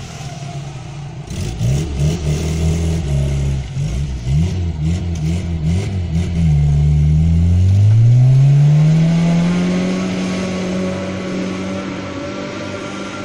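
Suzuki 4x4's engine revving up and down in quick pulses as it works through mud. About seven seconds in it rises in one long rev and holds high and steady as the vehicle pulls away up the track, growing fainter with distance.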